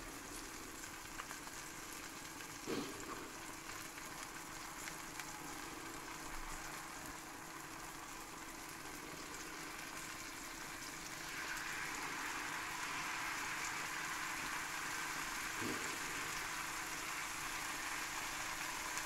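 Cheese frying and sizzling in a hot frying pan. About eleven seconds in the sizzling grows louder as pancake batter is poured over the crisped cheese. There is a light knock about three seconds in.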